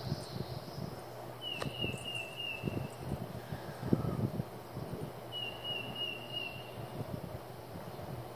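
A bird's high trill, given twice about four seconds apart, each about a second and a half long and falling slightly in pitch, over a low rumble of wind on the microphone.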